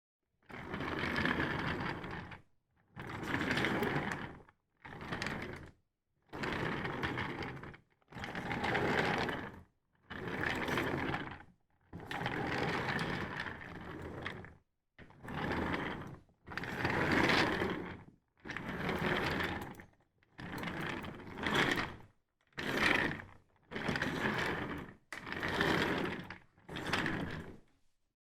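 Office chair being moved, in about fifteen separate short takes of one to two seconds each, with dead silence between them.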